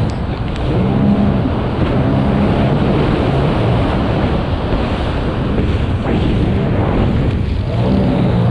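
Sea-Doo Spark personal watercraft engine running at racing speed, its note wavering in pitch, over a steady rush of water spray and wind.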